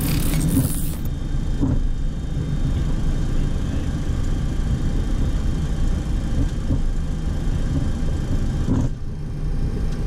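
Steady low rumble on the flight deck of a Boeing 737-800 taxiing, its CFM56-7B engines at idle. A brief hiss sounds in the first second.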